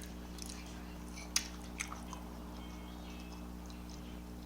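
Close-miked chewing and mouth sounds of a person eating, with a few short sharp clicks, one louder about a second and a half in, over a steady low hum.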